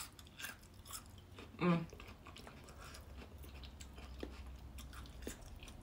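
Close-up crunchy chewing of a water chestnut. Several crisp crunches come in the first second or so, followed by softer, fainter chewing.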